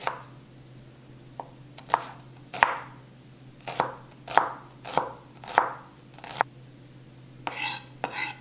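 Chef's knife chopping a shallot on a wooden cutting board: about nine separate knocks of the blade against the board, unevenly spaced half a second to a second apart, with a couple of longer, rougher sounds near the end.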